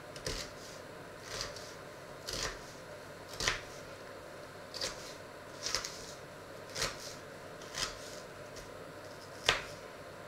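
Kitchen knife dicing an onion on a cutting board: about nine separate cuts, roughly one a second, the loudest near the end.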